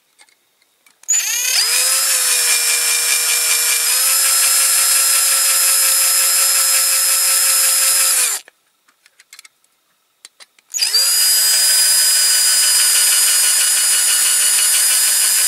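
Cordless drill drilling out the rivet posts on a diecast Dinky Toys model's base. It runs in two long bursts, the first of about seven seconds and the second starting about eleven seconds in. The motor whine spins up at each start and then holds a steady pitch.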